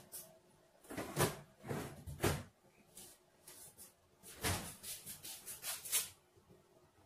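Several clunks and rattles of things being handled in a kitchen, coming in three bunches about a second or two apart.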